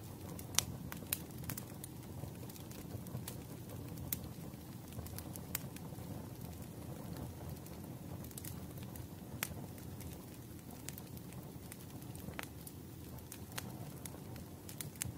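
Wood fire crackling: a steady low rush of burning logs with irregular sharp pops and snaps, a few of them standing out louder.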